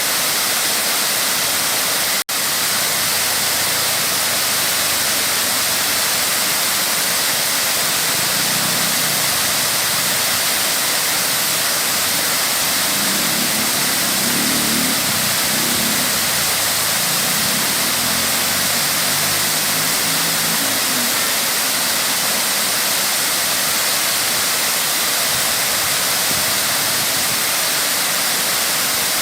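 Waterfall's water pouring and splashing in a steady, loud rush, with a momentary cut-out about two seconds in.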